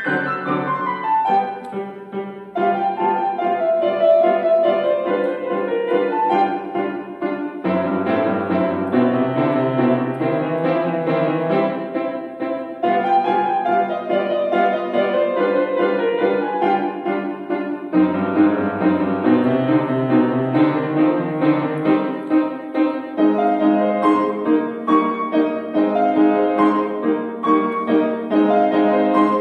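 Solo grand piano playing a classical piece: flowing runs of notes that rise and fall over a moving bass line, with the low bass coming in more heavily about a quarter of the way through and again past the middle.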